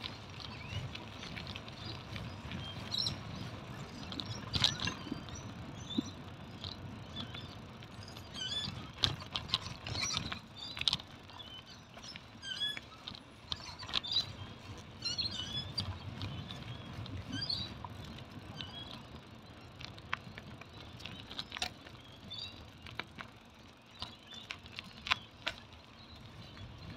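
Bicycle rolling along an asphalt path: a steady rumble of tyres and wind with frequent sharp clicks and rattles from the bike over bumps. Birds chirp through the middle of the stretch.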